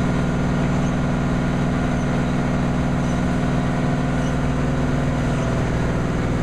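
Engine of a soil-nail drill rig running steadily while its auger drills into the soil face, with a slight change in pitch about five seconds in.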